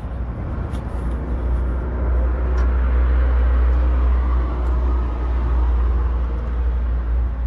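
Steady low motor-vehicle rumble that swells louder for a few seconds in the middle, with a few faint clicks.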